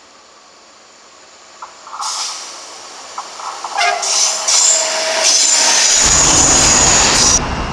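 A train approaches and sounds its horn as a greeting to the trackside watcher, then passes close by with loud rumbling wheel and rail noise. The sound cuts off abruptly near the end.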